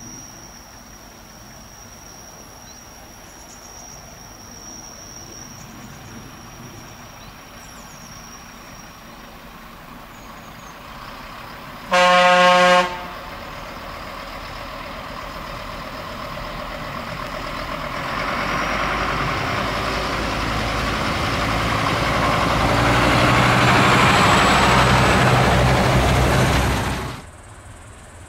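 Siemens-Duewag RegioSprinter diesel railcar giving one short horn blast about twelve seconds in, then its engine and wheels on the rails growing steadily louder as it approaches, cutting off suddenly near the end.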